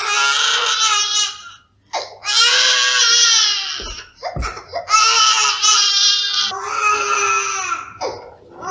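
A baby crying in long, high-pitched wails, four of them with short breaks between.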